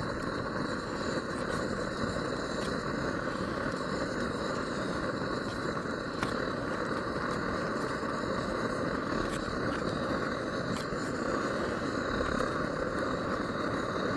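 Primed liquid-fuel camping stove burning under a pot of porridge, giving a steady even rushing sound, with a few faint light ticks over it.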